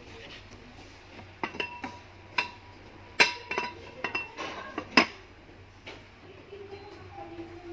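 Glass lids and granite-coated pots clinking together as they are handled: a string of sharp clinks with a short ring, the loudest two about three and five seconds in.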